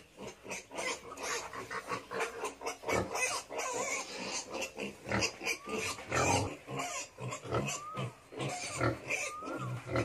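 A sow and her litter of piglets at suckling: a steady stream of short grunts and snuffles, with brief rising-and-falling squeals from the piglets in the second half.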